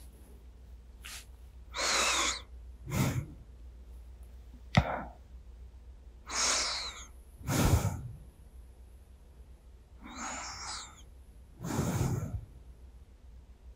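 A drowsy, sleeping person breathing close to a binaural microphone: about seven slow, separate breaths, each a soft rush of air. A single sharp click comes a little before five seconds in and is the loudest moment.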